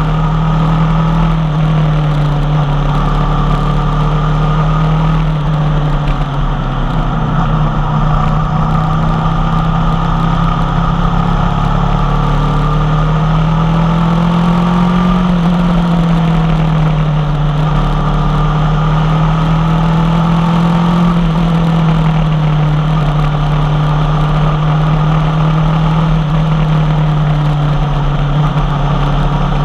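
2016 Aprilia Tuono V4 1100 Factory's V4 engine running through an unbaffled Tech 1 Carbon M4 exhaust, holding a steady engine speed. The pitch rises gently and eases back about halfway through and again a little later.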